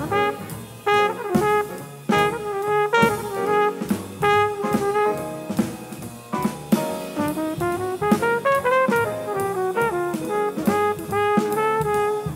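Trumpet playing a jazz line of quick, moving notes over a swing rhythm section, with drum kit strikes throughout.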